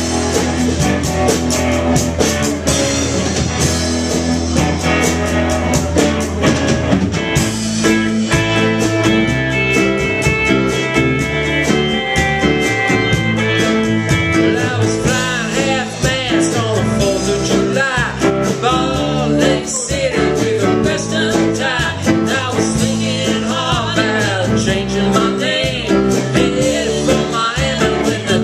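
Live band playing an instrumental passage: drum kit and guitar, with the arrangement changing about seven seconds in.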